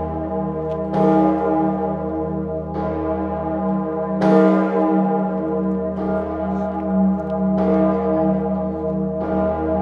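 Salzburg Cathedral's large bronze church bells swinging and ringing in the belfry, with heavy strikes about every second and a half to two seconds over a deep, sustained hum.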